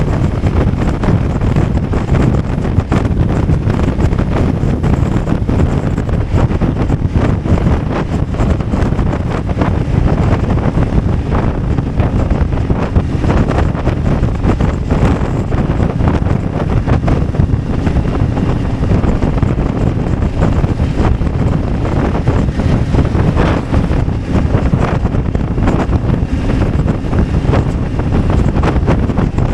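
Steady wind rush and buffeting on the microphone of a BMW F 850 GS motorcycle underway, loud and heavy at the low end.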